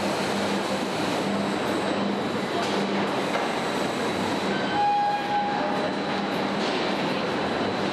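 Steady din of a car-body assembly line: machinery and industrial robots running, under a low hum that pulses about twice a second. A short tone sounds about five seconds in.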